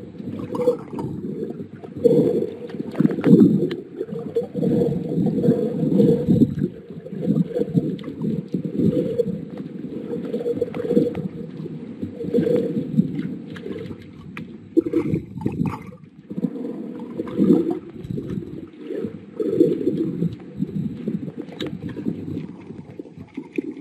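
Muffled underwater sound of water moving around a submerged camera, swelling and falling irregularly, with almost nothing above a dull low rumble.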